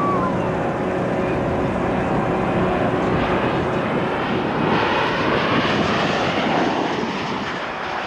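Aero Commander Shrike twin piston engines droning in flight. The sound grows fuller and louder from about four and a half seconds in as the plane passes close, then starts to fade near the end.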